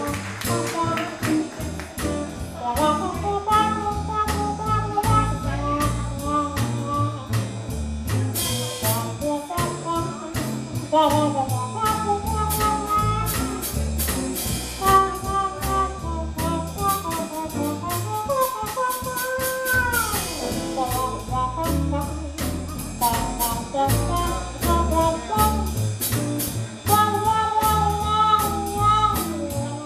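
Live jazz quartet playing a medium swing: archtop guitar, upright bass and drums under a horn-like solo melody from the singer, her hands cupped around the microphone. The line bends between notes, with a long downward slide about two-thirds of the way through.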